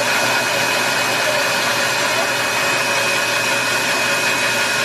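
Dog grooming blower (high-velocity pet dryer) running steadily, its hose blasting loose shedding undercoat out of a Siberian husky's coat: a constant rush of air with a steady high motor whine over it.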